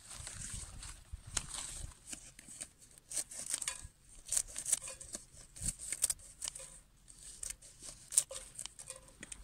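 Scissors snipping ivy leaves and the leaves rustling as they are gathered into a stainless steel saucepan: a run of irregular short snips and crackles.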